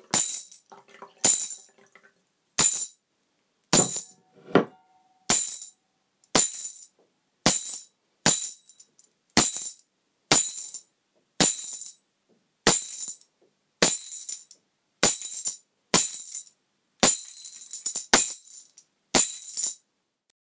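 Tambourine struck about once a second, each hit a short bright jingle of its metal zils with silence between. About four and a half seconds in there is also a duller knock with a brief ring.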